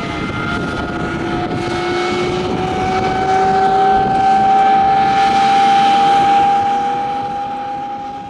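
A de Havilland Vampire's Goblin turbojet running on the ground: a jet whine over a rushing noise, its tones climbing slowly in pitch as the engine spools up. It grows louder through the middle and eases near the end.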